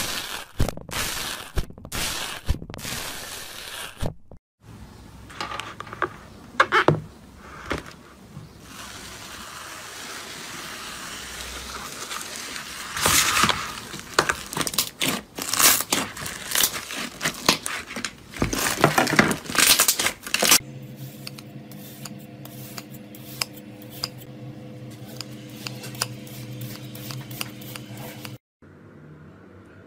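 Slime being worked by hand in a string of short clips, with dense crackling, popping and clicking. A steady hum runs under one stretch near the end.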